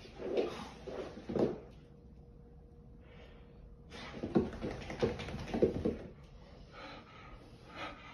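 A freshly bathed dog rolling and squirming on a rug, its body rubbing and thumping against the floor with snorts, in two bouts: one at the start and a louder one about four seconds in.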